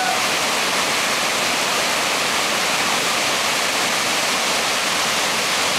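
Steady rushing of a large whitewater river rapid, water churning and pouring over rocks without a break.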